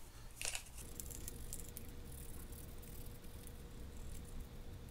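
Faint rustling and light scraping as a cotton swab wipes the removed handle and knob of a Lew's Mach Crush spinning reel, with a brief louder scrape about half a second in.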